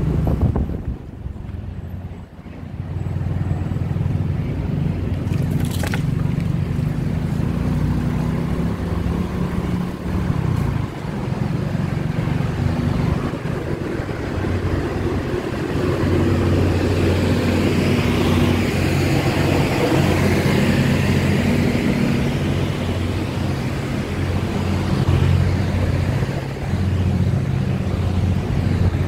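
Engine of a slowly moving vehicle heard from on board, running steadily with its pitch stepping up and down as it speeds and slows, over road and wind noise.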